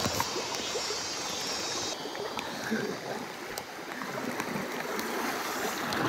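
Fast-flowing river water rushing steadily, with a brighter high hiss over the first two seconds.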